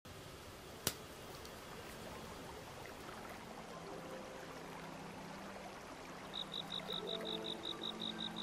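A thick, crisp baked cookie snapping once as it is broken by hand, a single sharp crack about a second in. Near the end comes a quick, even run of short high chirps, about five or six a second.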